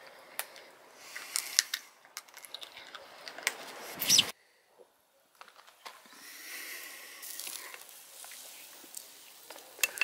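Small scattered clicks and cracks of crayfish shells being broken and peeled while eating, with a louder crackle near the middle. The sound cuts out briefly after that and gives way to a faint steady hiss with a few clicks.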